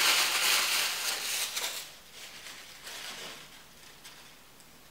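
White tissue wrapping paper rustling and crinkling as a wrapped item is unwrapped by hand. It is loudest in the first two seconds, then a few softer crinkles that fade out.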